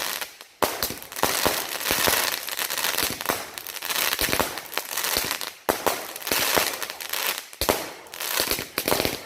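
A 25-shot consumer fireworks cake firing: a rapid, continuous crackle of many sharp pops and bangs. There is a brief lull about half a second in, and short dips near the middle and later on.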